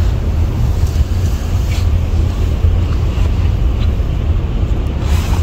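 Steady low rumble with a rustling hiss, from handling noise and fabric rubbing against a phone microphone.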